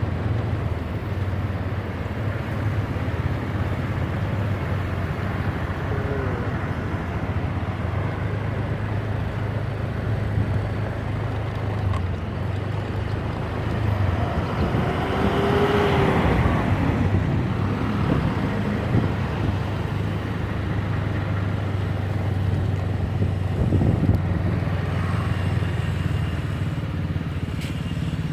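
Road vehicles at a bus terminal: a steady low engine hum under traffic noise, with a vehicle passing, louder, about halfway through. No telolet horn sounds.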